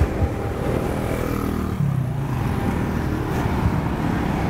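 Street traffic of motor scooters and motorcycles, the engines running steadily, with one engine note dropping in pitch as it passes by about a second in.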